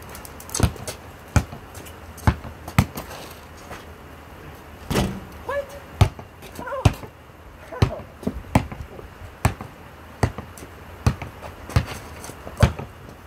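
A basketball being dribbled, bouncing about once a second in a fairly steady rhythm of sharp bounces.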